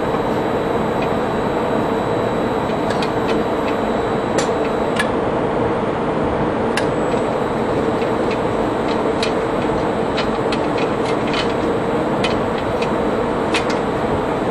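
Steady machinery noise with scattered light clicks at irregular times.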